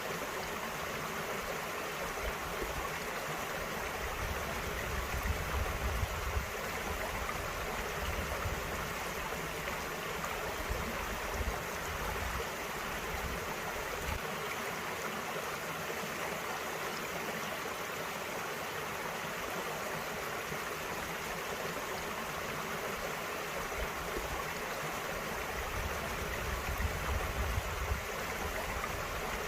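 A small mountain stream running over rocks, a steady rush of water with gurgling, and a low rumble that swells now and then.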